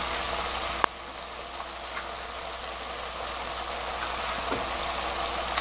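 Soy-and-syrup sauce bubbling and sizzling steadily in a wok as sweet potato stems braise on very low heat. A single sharp click comes about a second in.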